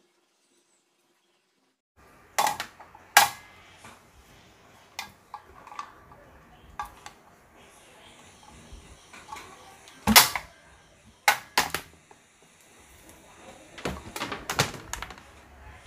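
Sharp clicks and knocks of hands handling a homemade aluminium-extrusion coil-winding machine, starting about two seconds in. A faint high steady whine runs through the middle few seconds.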